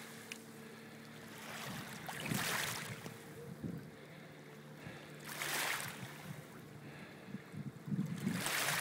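Small waves lapping and washing, rising and falling in soft swells about every three seconds, over a faint steady low hum; the water turns choppier and louder near the end.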